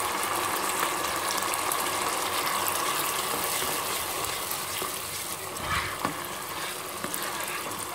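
Tomato and ginger-garlic paste sizzling in hot oil in a kadai as it is stirred with a slotted ladle: a steady frying hiss, with a few short scrapes of the ladle about six seconds in.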